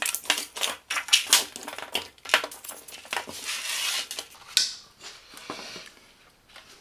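The opened casing of a Parkside PISG 120 D5 inverter welder, plastic front panel and metal chassis, being handled and turned over on a wooden table: a string of irregular clicks and knocks, with a brief rustle about three seconds in.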